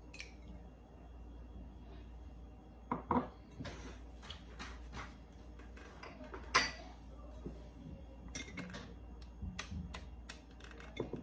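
Scattered light knocks and clinks of glass mixing bowls handled on a wooden cutting board and metal mixer beaters touching a glass bowl, with louder knocks about three seconds in and a sharp clink about six and a half seconds in.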